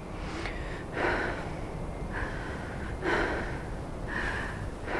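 A person breathing heavily, with deep airy breaths in and out about once a second.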